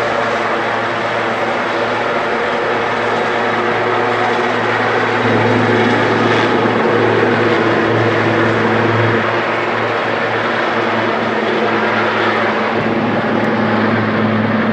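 Sikorsky S-76 helicopter taking off and climbing away: loud, steady rotor and turbine noise, with a low hum that grows louder about five seconds in.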